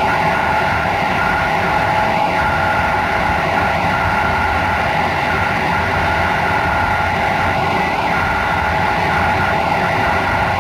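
Passenger train running at speed, heard on board: a steady rumble of wheels on the rails with a constant whine over it.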